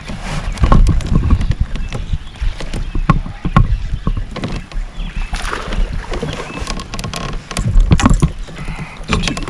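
Irregular knocks and clicks of fishing tackle being handled in a plastic fishing kayak, over a steady low rumble.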